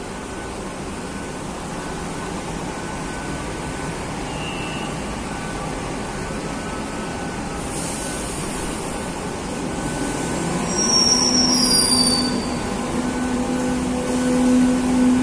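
Madrid Metro train running through the station: a steady rumble, then about ten seconds in an electric motor whine rises and holds, with a few brief high wheel squeals as it grows louder.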